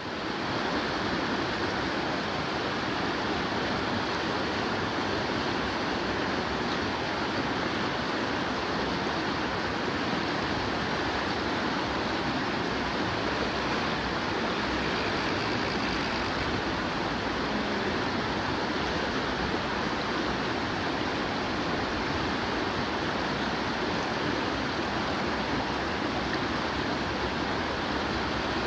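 River rapids rushing over rocks: a steady, even roar of white water.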